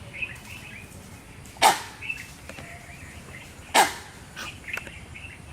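Common langur giving two short, loud bark-like calls about two seconds apart, each dropping in pitch.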